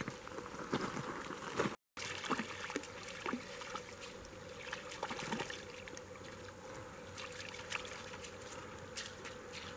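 A puppy's paws splashing and sloshing as it wades through shallow creek water over pebbles, with the creek trickling steadily underneath. The splashes come thickest in the first half.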